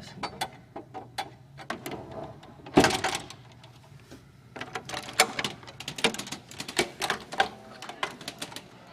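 Door swinging shut under its overhead closer: one loud knock about three seconds in, then a run of quick irregular clicks and rattles from the door and latch hardware.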